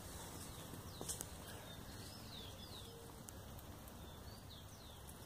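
Faint bird calls, several short high sliding chirps scattered over quiet woodland background, with a soft knock about a second in.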